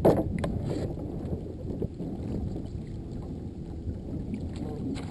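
Wind buffeting the microphone in a steady low rumble, with a brief louder burst right at the start.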